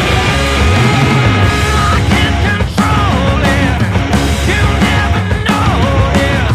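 Loud rock music with a sung vocal line over dense, distorted guitars and drums.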